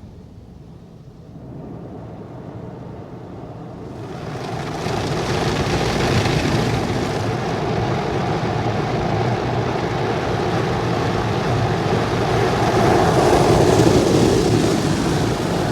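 Automatic car wash running: a low rumble that swells about four seconds in into a loud, steady rushing of spray and machinery.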